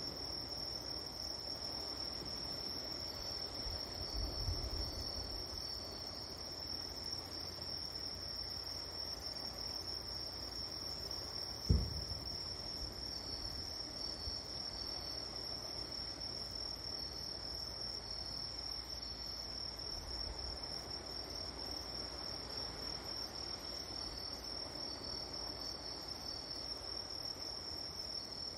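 Crickets or other night insects chirring steadily in one unbroken high tone, with fainter broken chirps just beneath it. A single short low thump comes about twelve seconds in, with softer low thuds a few times elsewhere.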